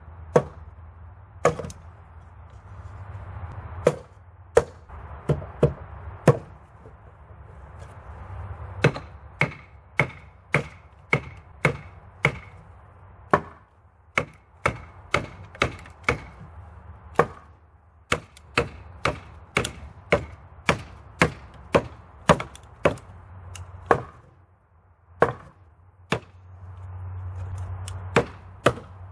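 Small camping hatchet splitting short sticks of softwood: a long series of sharp wooden chops, about one to two a second, with a brief pause about three-quarters of the way through.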